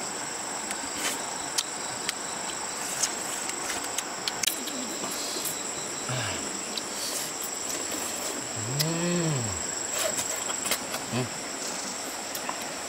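A steady high insect drone over the even rush of a forest stream, with scattered small clicks and a few short hummed voice sounds that rise and fall in pitch.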